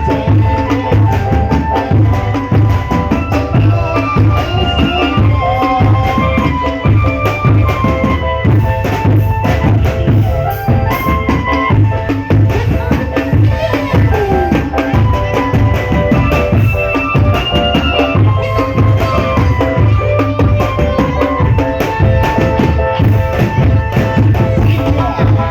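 Drum band playing: marching drums and bass drum beating a dense, steady rhythm under a melody of held notes.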